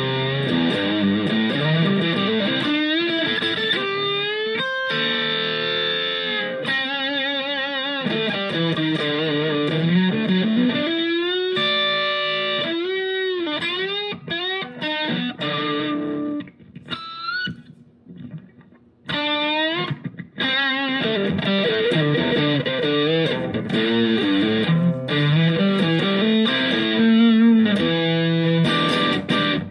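Electric guitar played through a Sonicake Matribox II Pro multi-effects processor preset with distortion: a lead line with string bends and vibrato. The playing thins out briefly a little past halfway, then resumes.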